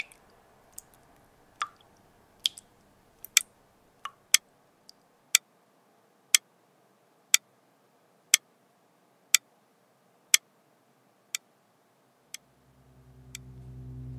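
Quartz wall clock ticking, the ticks uneven at first and then settling into a steady one tick per second. A low drone fades in near the end.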